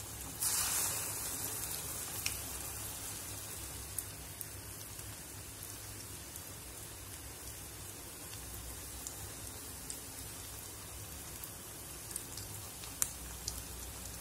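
Ulundhu vada (black gram fritters) deep-frying in hot oil: a louder sizzle about half a second in as a fresh piece of batter goes into the oil, then steady sizzling with scattered sharp pops.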